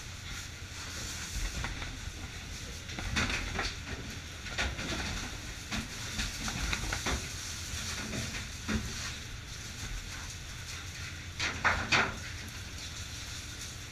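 Fish being packed in a fishing boat's fish room: irregular scrapes and rattles, the loudest a double one near the end, over the steady low drone of the boat's engine.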